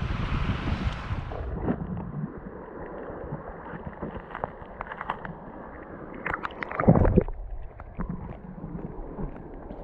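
River water running, with wind buffeting the microphone for the first second or so. Scattered clicks and one loud bump of handling noise come about seven seconds in.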